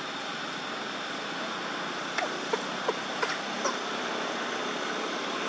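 Steady background noise like distant traffic, with a quick run of about five short, sharp squeaks or chirps between two and four seconds in.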